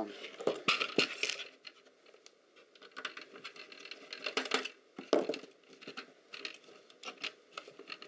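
Irregular clicks and light clatter of plastic and metal parts being handled as hands work at an opened laptop docking station's housing and circuit board, with a short lull about two seconds in.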